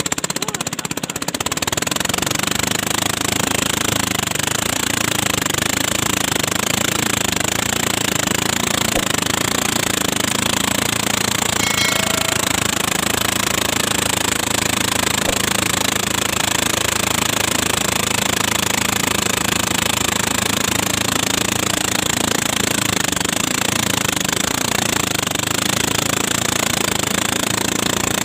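Small ketinting longtail boat engine running loudly and steadily.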